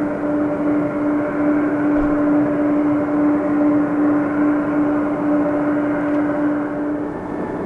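A Boeing 777-200ER's twin jet engines running at high power on the runway at the start of the take-off roll: a steady roar with a steady low hum, which fades out near the end.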